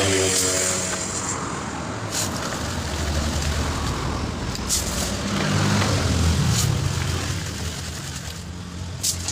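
A motor vehicle engine running, swelling and easing in level, with a few sharp clicks or knocks over it.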